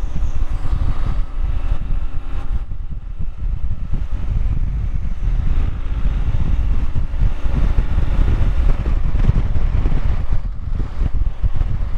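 BMW R1100GS motorcycle riding at speed: wind rushing over the microphone with the bike's boxer-twin engine running underneath.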